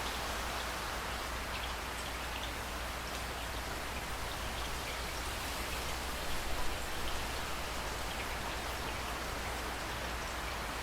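Steady heavy rain falling, a continuous hiss with scattered individual drops ticking through it.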